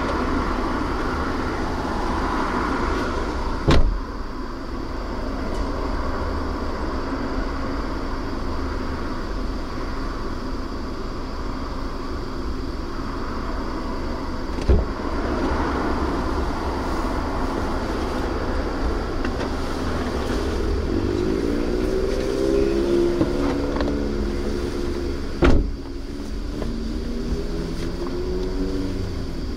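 A steady low rumble heard from inside a car, with a sharp knock about every eleven seconds. A wavering whine that bends up and down in pitch comes in about two-thirds of the way through.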